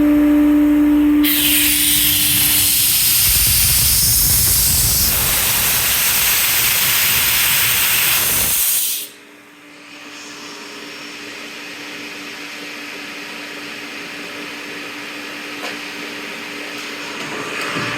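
Maximus 10 HP rotary screw air compressor running with a loud rush of compressed air hissing out for about seven seconds. The hiss cuts off suddenly, leaving a much quieter steady hum from the machine.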